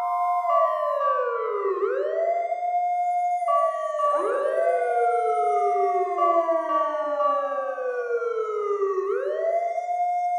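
Fire truck siren wailing: each cycle rises quickly and then falls slowly, repeating several times with overlapping layers, over a steady tone that cuts in and out.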